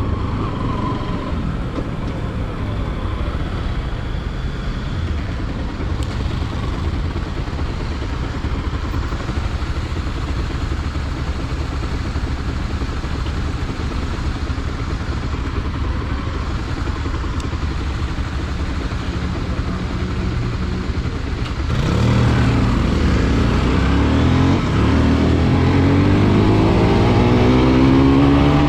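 Bajaj Pulsar NS200's single-cylinder engine heard while riding, running steadily at a cruise. About 22 s in the throttle opens and the engine accelerates hard, its pitch climbing steadily.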